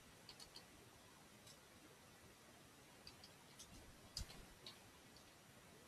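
Faint, scattered keystrokes on a computer keyboard over near silence, a few at a time. The loudest keystroke comes about four seconds in.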